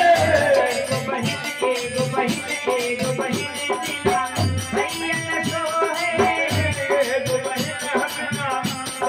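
Devotional folk song (bhajan): a man sings a wavering melody over a dholak barrel drum beating a steady rhythm, with a rattling percussion keeping time.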